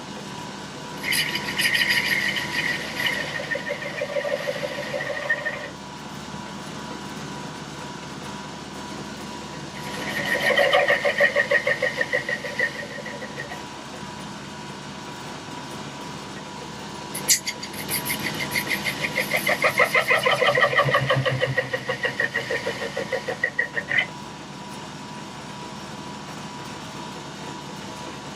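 1941 South Bend 13-inch lathe running with a steady hum while its tool cuts a steel sawmill blade guide roller in three passes, each a rapidly pulsing scrape; the last and longest pass cuts off suddenly.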